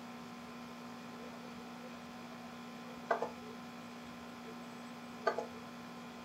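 Steady electrical hum on the headset microphone, with two short sharp mouse clicks, one about three seconds in and one about five seconds in.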